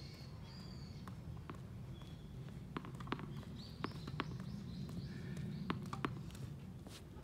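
Footsteps and scattered light taps on a hard tennis court as a player walks between rallies, over a steady low background hum with faint high chirps.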